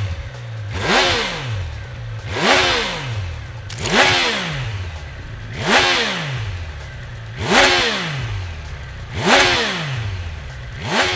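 Triumph Tiger Sport 800's three-cylinder engine blipped repeatedly through an aftermarket Scorpion exhaust, about seven short revs, each a quick rise and fall in pitch, settling back to idle between them.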